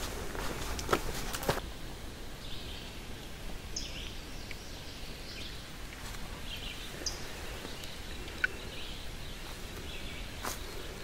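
A hiker's footsteps on a trail for the first second and a half. Then the footsteps stop and small birds give short, high chirps over a faint steady background. The footsteps start again near the end.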